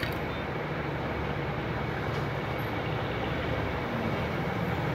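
Steady background rumble and hiss, strongest in the low range, with no distinct events.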